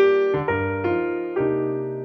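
Background piano music: unhurried notes and chords, each struck and left to ring and fade, with a new one about every half second and a low bass note coming in partway through.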